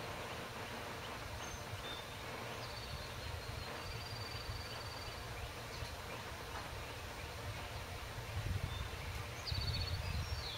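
Faint, scattered calls of small birds: a few short high chirps, a thin high note held for about a second and a half, and near the end a couple of chirps with a falling note, over a steady low rumble that grows louder near the end.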